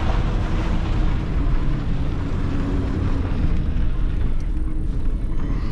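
Pickup truck driving slowly, heard from inside the cab: a steady engine and road rumble.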